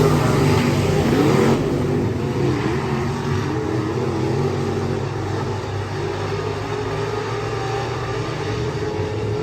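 Race car engines running and revving together, with several engine notes rising and falling at once. A louder rush of engine noise fades off about a second and a half in.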